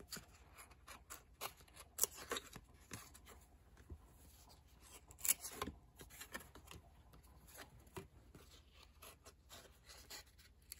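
Faint handling of a stack of 1993 Diamond Marks baseball cards: card stock sliding and clicking against card as they are flipped through by hand, irregular, with slightly louder flicks about two seconds in and again a little after five seconds.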